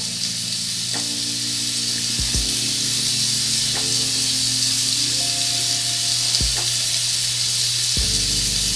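Soft background music of sustained chords and low bass notes, changing every couple of seconds, over a steady high hiss.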